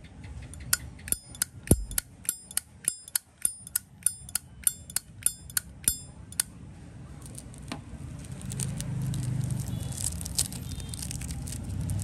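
Zippo lighter's lid hinge and cam clicking in a quick run of crisp metallic clicks with a bright ring, about three a second, stopping about six seconds in: the 'good sound' that collectors listen for. From about eight seconds a low steady rumble of traffic comes in.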